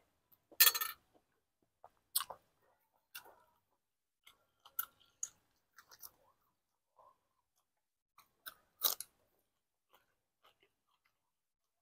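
Close-miked eating sounds: wet chewing and mouth smacks over a mouthful of beef stew and sticky rice, in scattered short clicks. There is a loud slurp from the spoon about half a second in, and another loud mouth noise near nine seconds.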